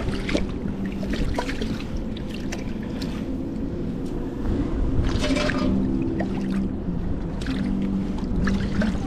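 Steady rush of river water with a low hum under it, broken by short clicks and rustles; the loudest is a scuffing burst about five seconds in.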